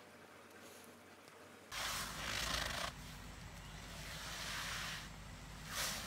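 An elephant rubbing its body against a tree trunk, its hide scraping on the bark: a scraping rush for about a second shortly after the start and a brief one near the end, over a low outdoor rumble. The first second and a half is faint.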